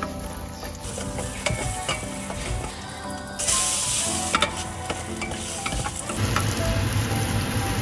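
Onions and garlic sizzling in hot oil in a stainless steel pot, with small knocks of a wooden spoon stirring. About three seconds in, the sizzle suddenly grows louder and brighter as chopped food is tipped into the hot oil.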